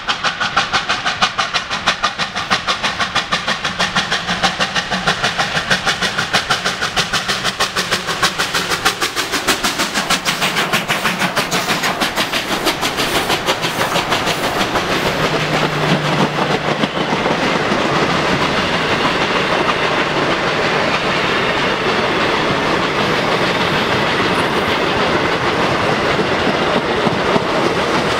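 Two R class 4-6-4 Hudson steam locomotives pass at speed, their exhausts beating rapidly and evenly. About fourteen seconds in the exhaust beat fades into the steady rolling rumble and clatter of the passenger carriages going by.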